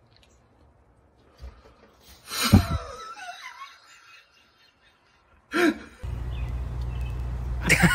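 A person's startled laugh with gliding pitch about two and a half seconds in, then a shorter cry at about five and a half seconds. After that a steady low rumble sets in, with another brief cry near the end.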